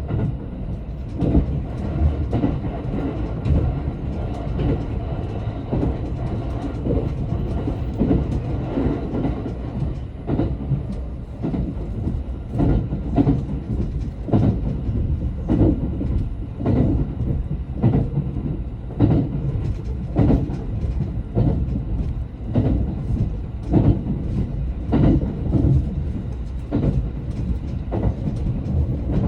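Running noise of the Kuroshio limited express electric train heard from inside the carriage: a steady low rumble with irregular clacks of the wheels over rail joints.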